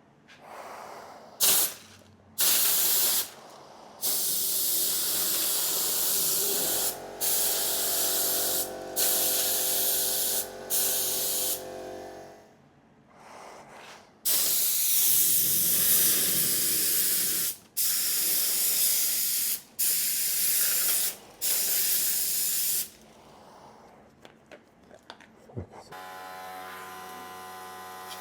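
Spray gun spraying Tamiya black lacquer with compressed air at just under 2 bar: about ten bursts of loud hiss, each one to three seconds long, with short gaps between them. A steady hum runs under some of the bursts and again near the end.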